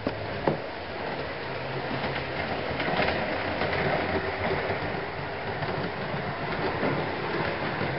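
OO-scale model train running on the layout's track: a steady motor hum and rolling noise, with a sharp click about half a second in.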